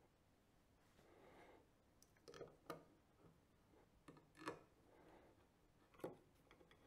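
Faint handling clicks and light metal scrapes as a screwdriver drives small screws into an astro camera's filter wheel housing, in a few short groups with near silence between them.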